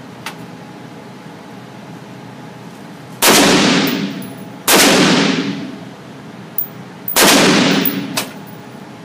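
M4-style rifle fired three single shots, about a second and a half and then two and a half seconds apart, each echoing and fading over about a second in the indoor range.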